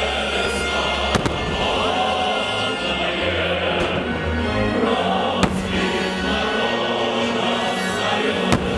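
Fireworks going off as a few sharp bangs: two close together about a second in, one in the middle and one near the end. Loud choral music plays steadily underneath.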